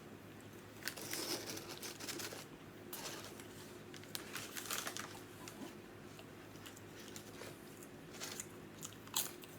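Paper food wrapper crinkling in several spells as it is handled, with a sharp crackle near the end.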